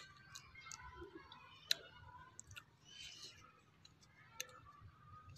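Faint, scattered sharp clicks, about half a dozen at irregular spacing, as a knife cuts into a small yellow fruit held in the hands.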